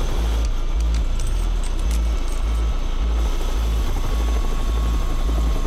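Helicopter running with its rotor turning, a steady low pulsing beat of the blades over the turbine noise.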